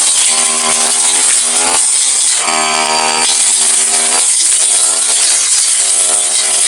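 Petrol brush cutter engine running hard with its stamvik metal blade cutting grass, the engine pitch dropping and rising every second or two as the blade meets the grass.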